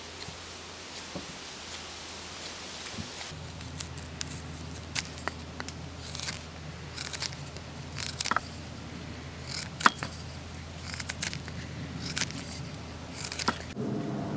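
A fixed-blade bushcraft knife carving a peeled green-wood stick: a dozen or so sharp, short cutting strokes at uneven intervals, some in quick pairs.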